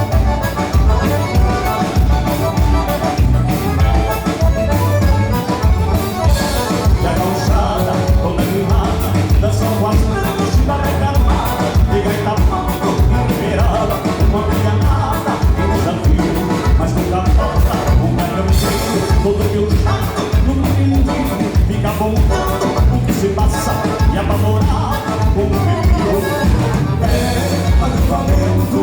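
Gaúcho dance-band music from southern Brazil, played loud with a steady driving beat.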